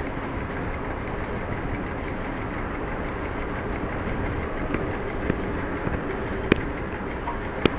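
Class 731 diesel locomotive pushing a heavy freight train, heard from inside its cab: steady engine and running noise of wheels on rails, with a few sharp clicks in the second half.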